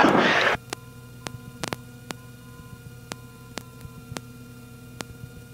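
Steady electrical hum of several fixed tones in the cockpit headset audio, with faint, irregular ticks every few tenths of a second; the engine itself is barely heard.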